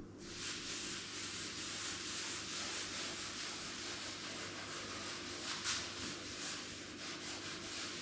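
Steady scratchy rubbing of sandpaper on wood, a continuous hiss that starts just after the beginning.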